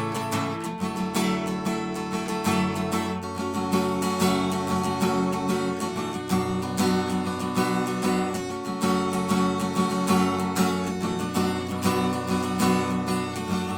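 Acoustic guitar strummed in a steady rhythm, moving through chord changes every second or two, with no singing.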